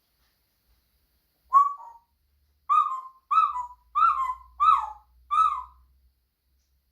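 African grey parrot calling: six short calls, each dropping in pitch at its end. The first comes alone about a second and a half in, then five follow in quick succession.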